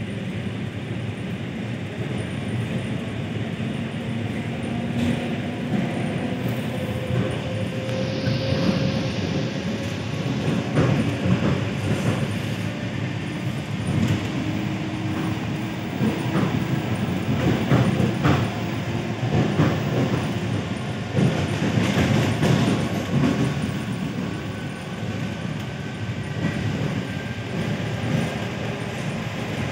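ED4M electric train running between stations, heard on board: a steady rumble of wheels on the track, with scattered knocks and clatter and a faint hum that shifts slowly in pitch.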